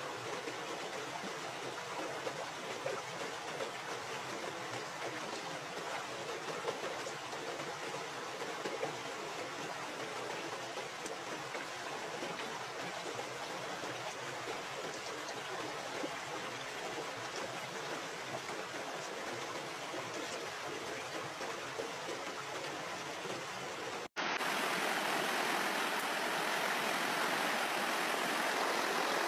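Steady rush of running water. After a brief dropout about 24 seconds in, it comes back louder and more even: a shallow stream pouring over rocks.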